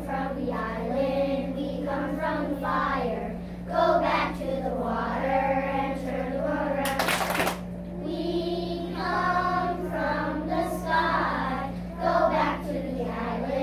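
A group of young children singing a song together, with a steady low hum beneath and one sharp knock about seven seconds in.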